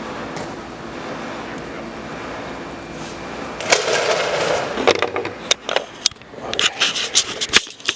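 Door handle parts being worked loose by hand: after a steady background hum, a scraping rub about three and a half seconds in, then a run of sharp clicks and knocks.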